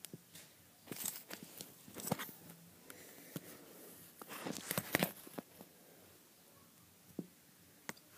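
Light scratching and clicking against a plastic terrarium tub, in irregular bursts with the busiest cluster just before the middle of the clip.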